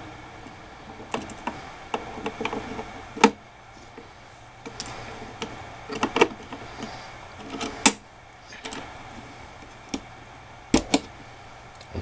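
Scattered sharp clicks and taps of a processor being seated in a motherboard CPU socket, with the socket's metal load plate and retention lever closed and latched over it. The sharpest clicks come about three, eight and eleven seconds in.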